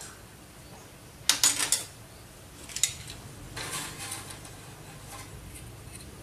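Metal hand tools, a screwdriver and pliers, clinking and scraping against the metal cap of a heated ceramic processor as the cap is pried off its softened solder. A quick cluster of sharp clicks comes about a second in, two more follow near three seconds, then a short scrape.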